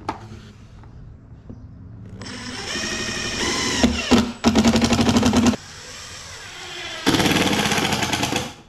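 Makita 18V cordless impact driver driving screws into a plastic tool box. The motor winds up with a rising whine, then the hammer rattles hard for about a second as the screw seats. A second loud burst of driving comes near the end.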